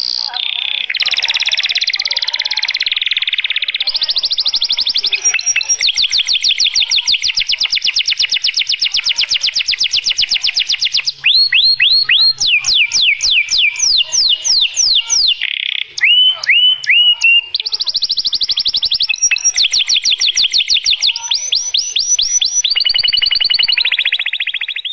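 Domestic canary singing a long, loud song of rapid trills and rolls. Partway through it switches to a run of fast falling notes, then a few separate notes after short breaks, before the trills resume.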